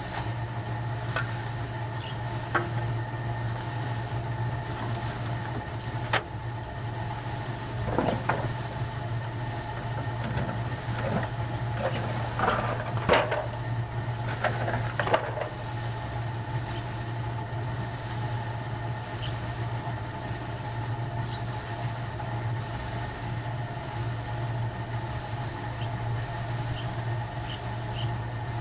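Steady mechanical hum of a running motor, with a few short clicks and brief squeaky noises in the middle.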